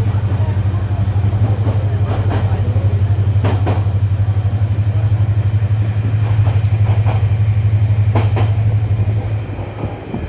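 Train running, heard from aboard a passenger carriage: a loud, steady low drone with a fast pulse, and a few sharp clacks from the wheels on the rails. The drone drops off about nine seconds in.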